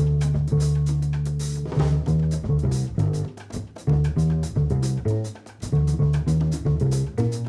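Jazz quartet playing live: upright bass, vibraphone, drum kit and congas. The bass line is the loudest part, with a steady beat of cymbal and drum strokes.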